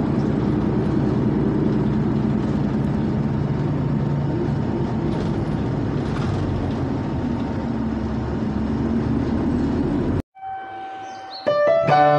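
Bus diesel engine running, heard inside the passenger cabin as a steady low rumble. It cuts off abruptly about ten seconds in, and a piano starts playing near the end.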